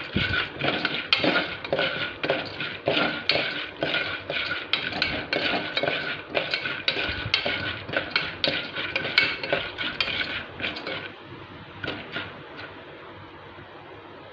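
Metal spoon scraping and stirring popcorn kernels in oil inside an aluminium pressure-cooker pot, in quick repeated strokes. The kernels are heating and not yet popping. The stirring stops about eleven seconds in, leaving a faint steady hiss with a couple of light clinks.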